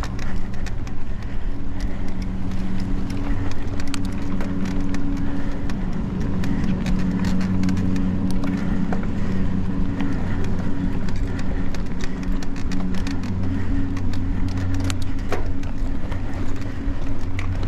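Mountain bike ridden over a dry dirt trail: tyres rolling on dirt and roots, with many sharp knocks and rattles from the bike over bumps, over a steady low buzz.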